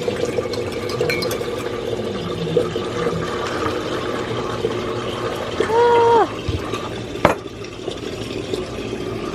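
A spoon stirring an iced drink in a glass, with light clinks over a steady low hum. A short hummed voice sounds about six seconds in, and a sharp tap follows a second later.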